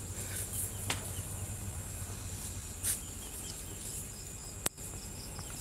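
Faint outdoor ambience: a steady low hum and hiss with a few light knocks, and faint repeated high-pitched chirps in the middle.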